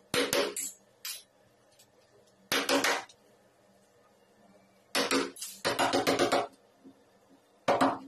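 A wood chisel scraping and paring wood from a latch mortise in a door edge, in about six short bursts under a second each, with quiet gaps between them.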